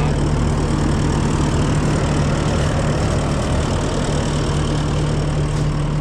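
Kubota SVL75-2 compact track loader's diesel engine running steadily, with its stud-fitted rubber tracks grinding over ice and packed snow.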